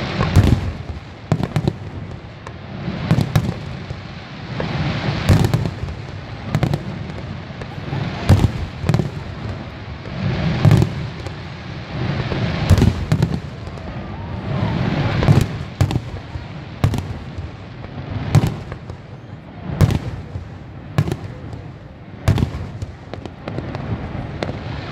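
Aerial fireworks display: shells bursting in quick, irregular succession, sharp bangs about once or twice a second over a continuous low rumble.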